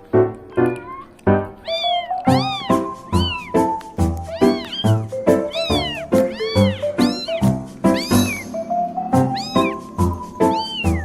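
Cat meows, one short rising-and-falling call about every half second, set over music with a steady low beat.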